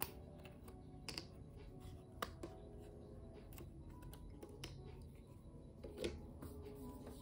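Thin laser-cut plywood pieces snapping and clicking as they are pushed out of their sheet and handled: a scatter of sharp, irregular clicks, the loudest just after the start, about a second in, a couple around two seconds and one about six seconds in. Soft background music runs faintly underneath.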